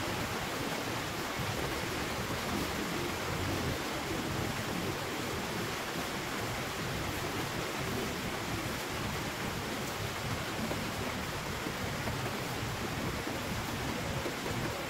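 A steady, even hiss with no distinct knocks or voices, like rain or wind noise.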